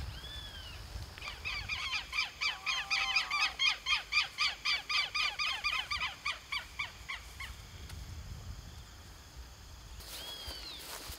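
Bird calls: one high call, then a fast run of high calls, about four or five a second for some six seconds, with a lower call overlapping in the middle, and another call near the end.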